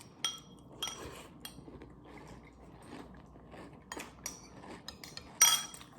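Spoon clinking against a bowl and crunchy cereal being chewed, with a handful of short sharp clinks; the loudest comes near the end.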